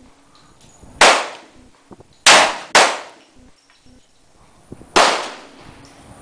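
Desert Eagle .50 AE pistol firing four single shots, each followed by a short echo. The second and third shots come about half a second apart.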